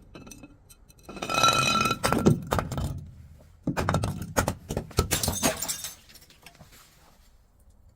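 Glass bottle breaking: a sharp crack about a second in with a ringing note for a couple of seconds, then a run of crunching, crackling strokes as the glass is crushed.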